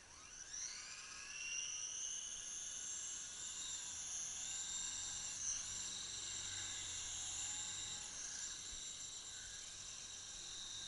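Large remote-control helicopter spooling up from rest: its motor and rotor whine rises steeply over the first second or two, then holds as a steady high whine, with a brief dip in pitch about halfway through.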